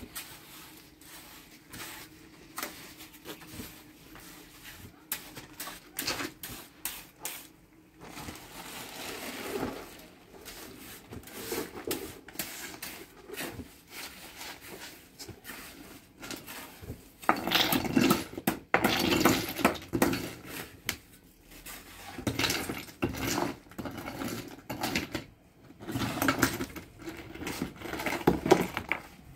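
Steel trowel scraping and scooping wet mortar, with rough stones knocking against each other as they are set. The clatter is loudest and busiest about two-thirds of the way through and again near the end.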